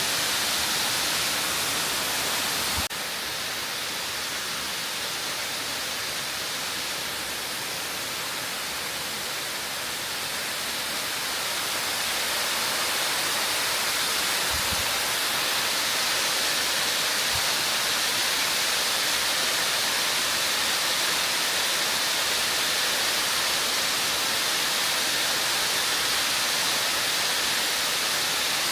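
Kiyotaki waterfall's falling water making a steady rushing hiss. The level drops abruptly about three seconds in and swells back up about twelve seconds in.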